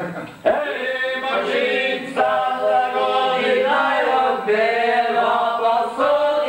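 Several men singing together unaccompanied, in phrases of long held notes.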